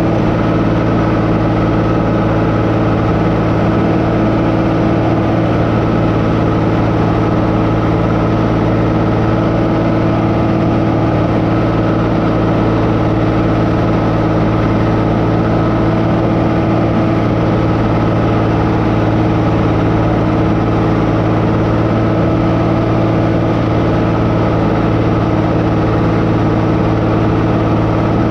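Farm tractor engine running at a steady, constant speed while working a crop sprayer, with no change in pitch or load.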